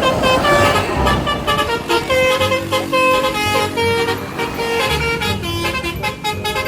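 Bus 'telolet' musical horn of the Basuri type playing a quick melody of short pitched notes, one after another, over a low rumble.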